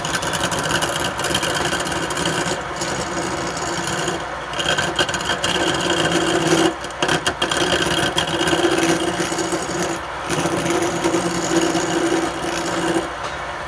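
Wood lathe running with a turning tool or abrasive rubbing against the spinning wood, a steady scraping with a humming tone; it eases off briefly twice, about seven and ten seconds in.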